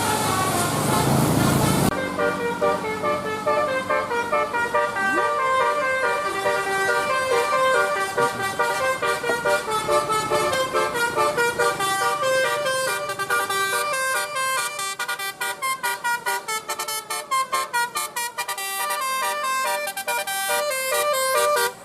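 A bus's Basuri telolet musical horn playing a tune of many quick stepped notes, which get shorter and choppier in the second half. It opens with about two seconds of vehicle rumble before the horn starts.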